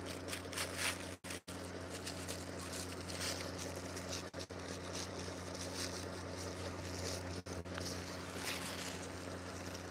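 Steady low drone of a fishing boat's engine, with a few short bursts of plastic-bag crinkling as the bag holding a squid is handled and tied.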